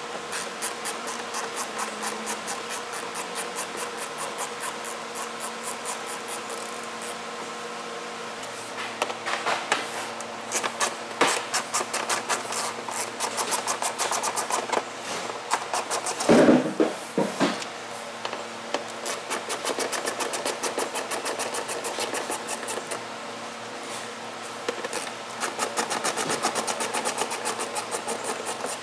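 Hand socket ratchet clicking in rapid runs as it turns the fender-liner fasteners at the wheel well, with a louder clatter about halfway through.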